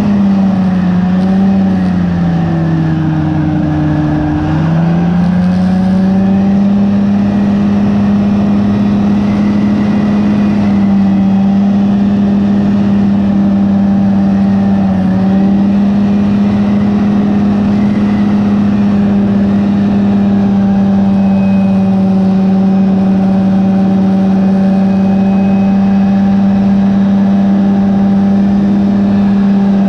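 Rotax 503 two-cylinder two-stroke engine driving the propeller of a Phantom X1 ultralight, running steadily at cruise power. The engine note drops a couple of seconds in as the throttle is eased back, climbs back up about five seconds in, and sags slightly for a moment around the middle.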